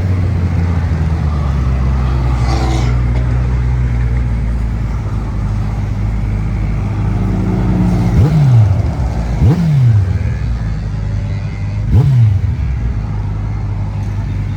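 Motorcycle engine idling, then blipped three times in the second half, each time the revs shooting up and dropping straight back to idle.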